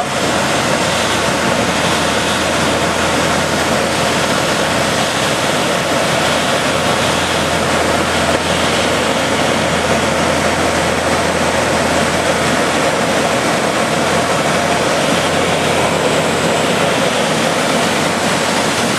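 Steady in-flight cockpit noise of a Pipistrel Sinus motor glider: a constant rush of air with a low, even hum underneath.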